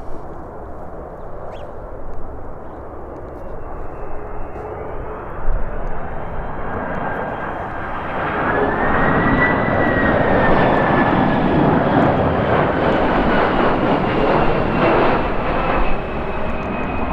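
Jet airliner's engines passing, their noise swelling from about six seconds in, with a high whine that rises slightly and then falls away. Steady low wind rumble on the microphone runs underneath.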